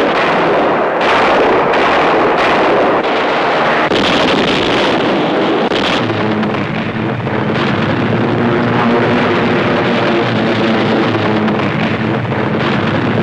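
Aircraft cannon fire and explosions in dense, rapid bursts for about the first six seconds. After that a steady engine drone comes through under continuing noise.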